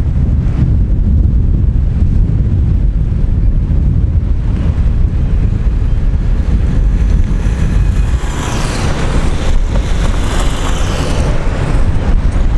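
Wind buffeting the microphone, a strong uneven low rumble. About eight seconds in, a louder hissing rush joins for roughly three seconds, then dies down.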